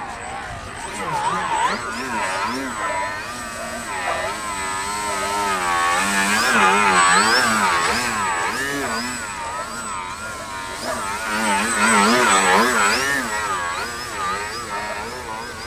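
Yak 55M radio-controlled aerobatic model plane's motor and propeller, its pitch rising and falling continuously as the throttle is worked through low-level manoeuvres and hovering.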